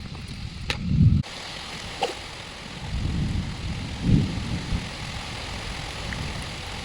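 Heavy rain falling as a steady hiss, with low rumbling swells about a second in, around three seconds and just after four seconds.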